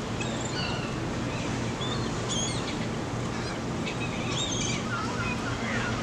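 Gulls calling: several short, high calls in separate bouts over a steady background noise.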